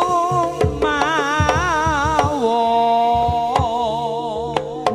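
Live Javanese jaranan gamelan music: a slompret (shawm) plays a wavering, ornamented melody with one long held note in the middle, over kendang drum strokes. Sharp percussion strikes come in near the end.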